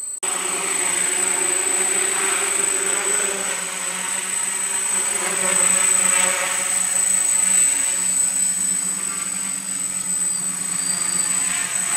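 Quadcopter's four electric motors and propellers running: the buzzing hum starts abruptly and holds steady as the craft lifts off and flies, with a thin high whine over it.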